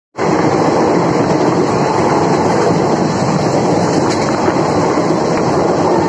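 Moving train heard from an open doorway: the steady rumble and rush of wheels running on the rails, with a sharp click about four seconds in.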